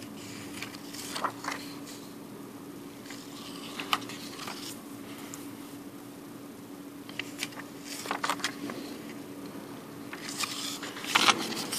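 Philippine paper banknotes rustling and crinkling as they are picked up, swapped and turned over by hand, in several short bursts with the loudest near the end. A steady low hum runs underneath.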